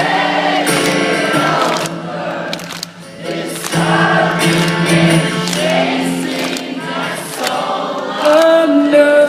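Live rock music played loud, with many voices singing a held, choir-like line over it.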